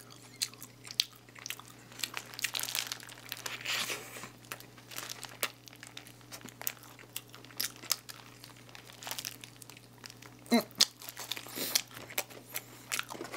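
Paper burger wrapper crinkling in the hands, with close-up bites and chewing of a McDonald's 1955 burger: many small sharp crackles and rustles with a few louder bursts.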